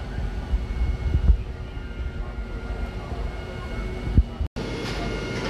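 Fire appliance engine running steadily, a low rumble with a constant whine over it, with wind buffeting the microphone. The sound drops out for a moment near the end.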